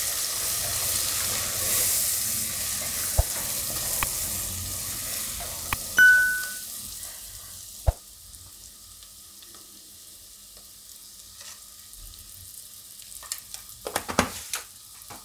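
Sliced onions and spices sizzling in hot oil in a pressure cooker while a silicone spatula stirs them. A short ringing ding about six seconds in, then the stirring stops and a fainter sizzle goes on with a few light clicks.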